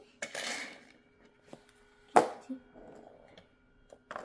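A toy monster truck knocking against a die-cast toy car on a wooden floor. There is one sharp clack about two seconds in, a brief hiss near the start and a few lighter clicks.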